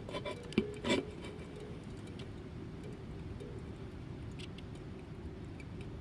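A sleeping cat snoring, a steady low sound, after two light clicks in the first second.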